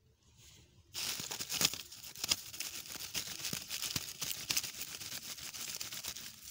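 Dry straw crackling and rustling: a dense run of crisp crackles that starts suddenly about a second in and stops suddenly near the end.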